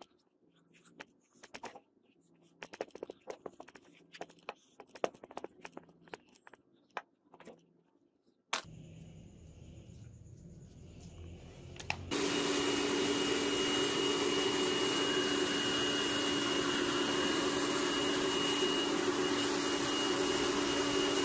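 Light taps and scrapes as hands and a small tool press casting sand into a wooden mould frame. After a sharp click and a few seconds of low hum, a loud steady hiss with a low hum and a thin high whine starts about twelve seconds in: a gas burner firing a small crucible furnace to melt brass scrap.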